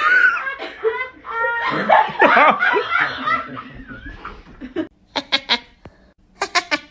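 A person laughing hard in bursts, trailing off about three and a half seconds in, followed by a few short, sharp bursts near the end.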